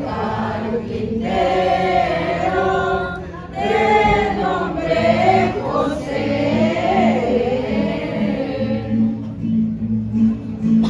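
A group of people singing a posada song together. About halfway through, a low, pulsing musical accompaniment comes in under the voices.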